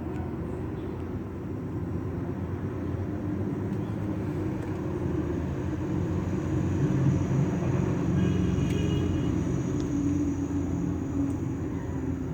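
A car engine running at idle, a steady low rumble that grows a little louder around the middle.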